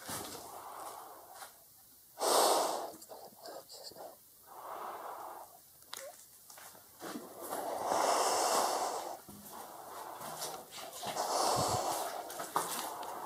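A person breathing, one long noisy breath every two to three seconds, the sharpest and loudest about two seconds in.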